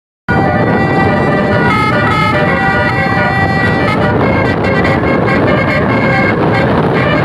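A bus's basuri telolet musical horn playing a multi-note tune, its pitch stepping quickly from note to note, over loud road and engine noise. It starts a moment in, after a brief gap.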